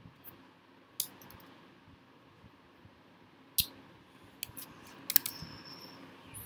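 Computer keyboard keystrokes: single sharp key clicks about a second in and past the middle, then a quick run of several clicks near the end.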